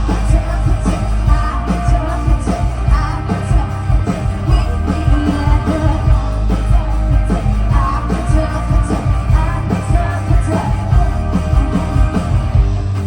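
Loud amplified rock music with singing and a heavy steady bass beat.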